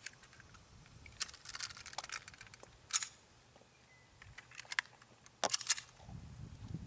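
Hi-Point C9 9mm pistol being handled to clear a failure to feed: a series of sharp metallic clicks and clacks from the slide and action. There are small groups of clicks about a second in, one sharp clack near the middle, and the loudest cluster near the end.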